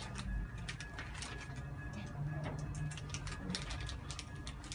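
An irregular scatter of light clicks and ticks, several a second, over a low hum.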